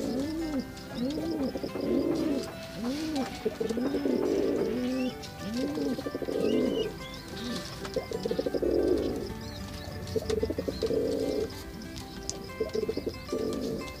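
Domestic pigeons cooing: a quick run of rising-and-falling coos, about three every two seconds, then rolling, throaty coos every couple of seconds. Faint high chirps sound now and then above them.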